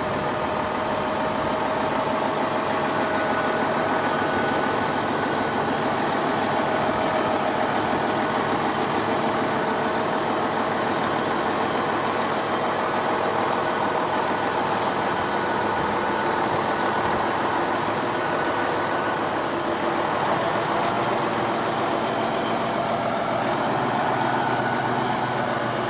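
Farm tractor engine running steadily, with a faint steady whine over the engine noise.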